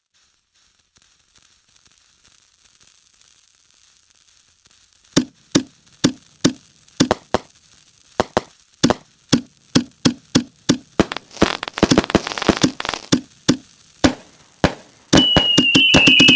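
A 36-shot, 0.8-inch whistling firework cake. A faint hiss gives way, about five seconds in, to tubes firing one after another in sharp launch thumps, about two a second. Near the end a loud whistle sets in, starting high and slowly falling in pitch.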